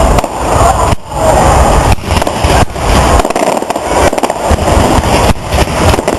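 Fireworks display: a dense, continuous barrage of crackles and bangs, very loud, with a heavy low rumble underneath that drops away about halfway through.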